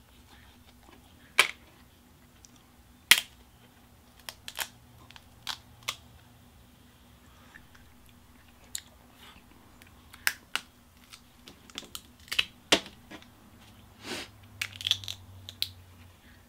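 Snow crab leg shells cracked and snapped apart by hand: two sharp cracks about a second and a half and three seconds in, then a scattering of smaller clicks as shell is picked away.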